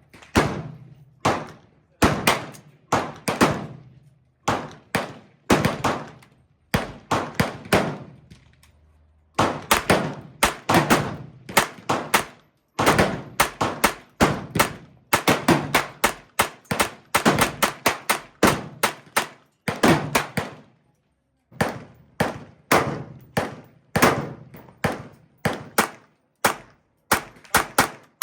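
Tippmann M4-22 Micro Elite .22 LR semi-automatic rifle firing shot after shot, sometimes spaced and sometimes in quick strings of several shots a second, with a couple of short pauses.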